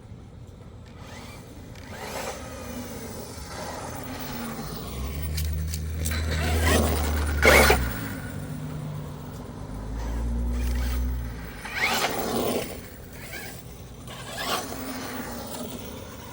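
Electric RC car driving over gravel: its tyres crunch and scatter stones in several short bursts, loudest about seven and twelve seconds in. A low motor hum comes and goes twice.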